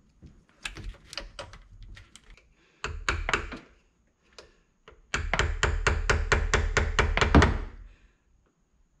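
Screwdriver driven through a stuck jet-ski oil filter being worked against it to lever the filter off. Scattered metal taps and knocks come first, then, about five seconds in, a quick even run of about a dozen sharp knocks, roughly five a second.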